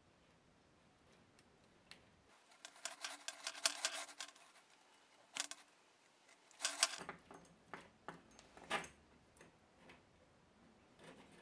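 Metal clicking and scraping as a flat screwdriver blade works at the chrome end fitting of a flexible stainless-steel shower hose, the hose's coiled metal sheath rattling. A rapid run of clicks starts about two seconds in and lasts some three seconds, then a few louder scrapes follow, the last near nine seconds.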